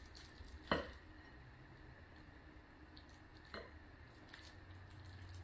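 Soft squishing of raw pork-and-shrimp filling being spooned and pressed by hand onto a tofu skin sheet. A sharp knock of the wooden spoon comes a little under a second in, and a lighter knock about three and a half seconds in.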